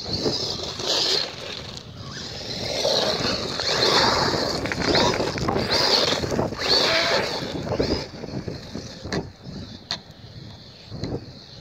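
Hosim 2845 brushless 1:16-scale RC truck on paddle tyres driving over gravel: the electric motor's high whine rises and falls with the throttle over the rough noise of the tyres on the stones. It grows fainter over the last few seconds as the truck runs farther off.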